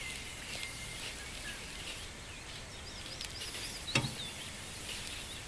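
Quiet open-country ambience with small birds singing: scattered high chirps and a quick run of four high notes a little past three seconds in. One sharp click about four seconds in.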